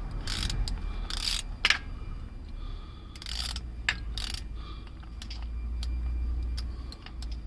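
Socket ratchet clicking and scraping in short strokes as a filter cap wrench on it works to loosen the old oil filter on a 2012 Honda Accord, with sharp metal clicks between strokes over a low, steady rumble.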